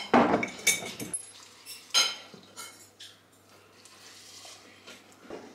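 Dry oats rushing out of a glass storage jar into a ceramic bowl, then the jar's glass lid being closed with a couple of sharp, ringing clinks. After that, milk is poured quietly over the oats from a plastic bottle.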